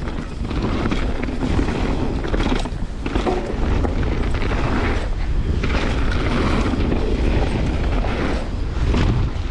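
Wind rushing over the microphone and tyres rumbling on a dirt trail as a mountain bike is ridden fast downhill: a rough, deep rumble that rises and falls.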